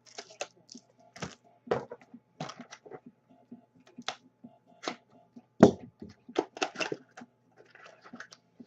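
Irregular clicks and taps from handling things at a desk, with one heavier knock about five and a half seconds in, over a faint steady hum.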